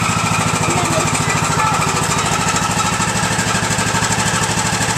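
Craftsman YT3000 riding mower's engine running steadily just after being restarted, with a fast, even pulse. The engine has just been refilled with fresh oil.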